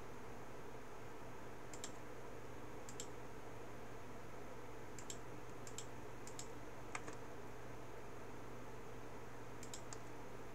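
Scattered sharp clicks of a computer mouse, singly and in quick pairs, placing wire points in a circuit schematic, over a steady low electrical hum.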